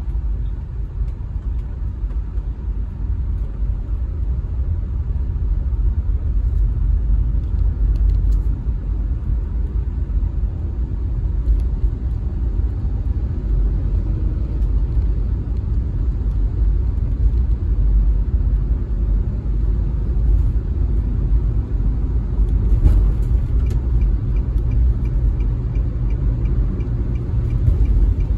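Car driving: a steady low rumble of engine and tyres on the road. A faint regular ticking starts near the end.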